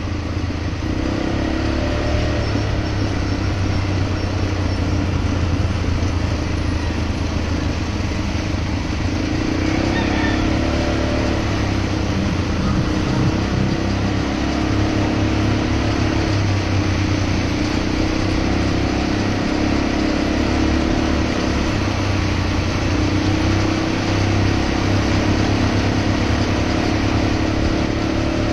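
ATV engine running steadily while driving along a road, its pitch holding nearly constant with little revving, over a continuous rush of road and air noise.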